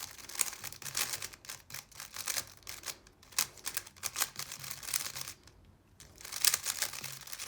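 A 3x3 speedcube, a GAN 11 M Pro, being turned quickly: fast runs of plastic clicking from the layer turns, with a brief pause a little over five seconds in before the turning resumes.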